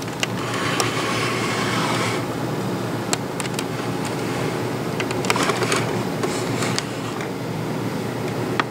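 Light clicks and rustling as the plastic case of a mini personal TV is turned over in the hands, over a steady background hum. Two stretches of rustly hiss, the first near the start and the second about five seconds in.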